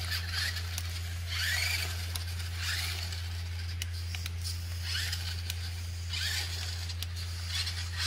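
Electric drive motors and gears of a DEERC DE45 RC rock crawler whining in repeated short bursts, each rising briefly in pitch as the throttle is applied, while it drives over paving tiles. A steady low hum sits underneath.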